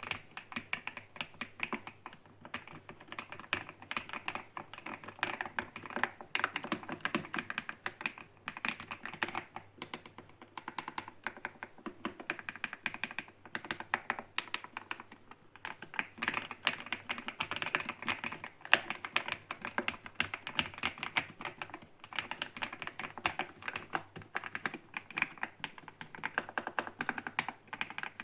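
Epomaker TH99 mechanical keyboard being typed on: a fast, continuous clatter of keystrokes with a few brief pauses.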